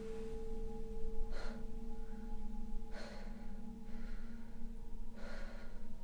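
Three loud, sharp breaths, spaced about two seconds apart, over a low, steady, droning tone.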